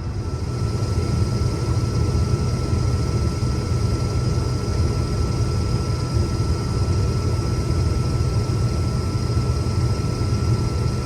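Case IH 2388 combine running steadily under harvest load, a constant low drone with a steady high-pitched whine over it, heard from the cab.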